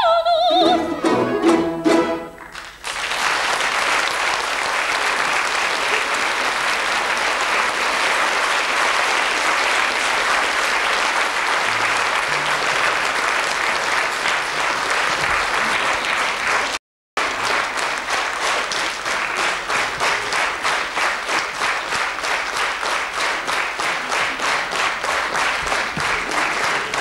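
A soprano's final high note, sung with vibrato, and the closing chords of a Russian folk-instrument orchestra, then an audience applauding. The applause cuts out for a moment midway and in the second half settles into rhythmic clapping in unison.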